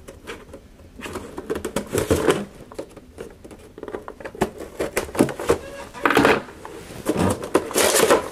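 Action figure packaging being handled as the figure is taken out: irregular clicks, taps and rustles of cardboard and plastic, coming in several short clusters.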